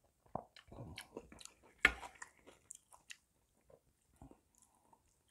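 Close-miked chewing of chewy beef intestine (gopchang) hotpot: scattered wet mouth clicks and smacks. The loudest sound is a single sharp click about two seconds in.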